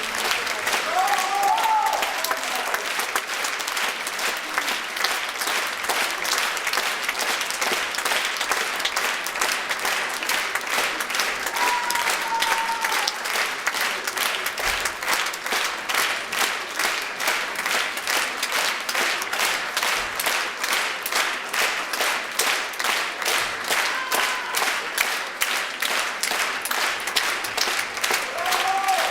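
Theatre audience applauding: dense clapping that settles into rhythmic clapping in unison about halfway through, with a few faint shouts from the crowd.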